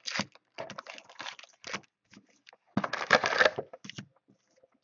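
Hands tearing and crinkling the plastic wrap and cardboard of a sealed football trading-card box, in irregular crackling bursts with the loudest tearing about three seconds in.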